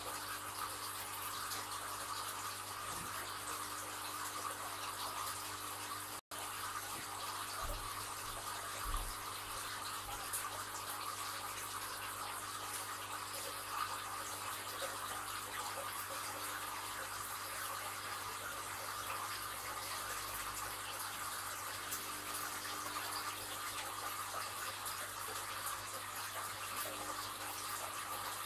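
Steady running and bubbling water of an aquarium's filter outflow and air bubbles breaking the surface, with a low steady hum underneath. The sound cuts out for an instant about six seconds in.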